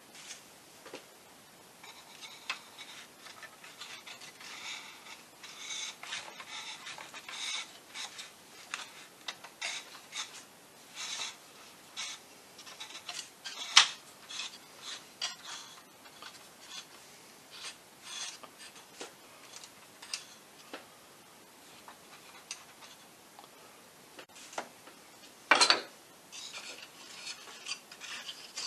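Light rubbing, scraping and scattered small clicks of plastic push rod sleeves and push rods being slid into and fitted on a balsa model wing. There is a sharp click about 14 seconds in and a louder knock near the end.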